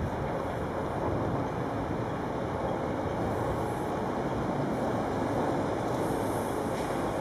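NS double-deck electric train running past on a far track: a steady rumble of wheels on rails.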